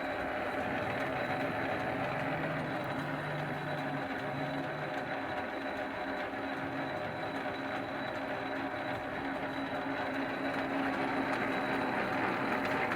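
CO630B metal lathe running steadily, its motor and gearing making an even hum with a constant whine.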